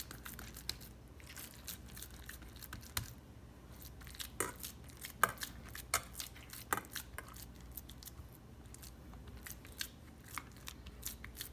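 Hands pressing and patting raw minced beef flat into a metal loaf pan: soft squishing pats with scattered small clicks, over a low steady hum.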